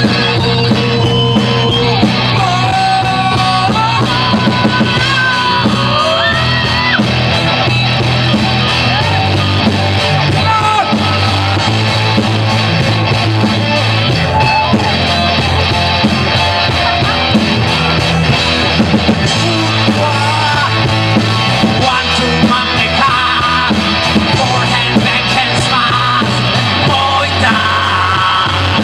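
Live rock band playing through a PA: electric guitars, bass guitar and drums, with a male singer's voice over them.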